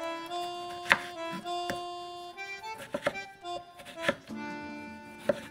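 Accordion music playing, with a kitchen knife knocking on a wooden cutting board several times as it slices through a tomato; the knock about a second in is the loudest.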